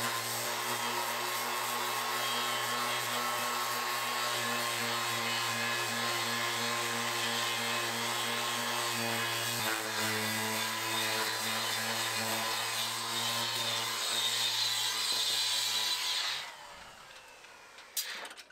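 Electric sander running steadily on teak decking, a constant motor hum under a dense grinding hiss. It shuts off abruptly about sixteen seconds in, and a single sharp click follows near the end.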